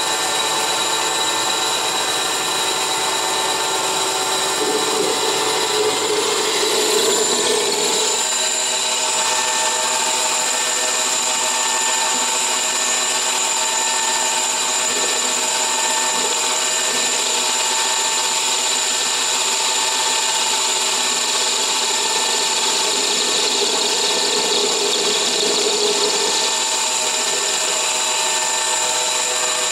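Harbor Freight 9x20 metal lathe, converted to CNC, running under load as its triangular carbide insert turns a fillet radius on the end of a hardened grade 10.9 bolt. The steady machine sound carries several high steady whining tones, and a lower hum fades out about eight seconds in.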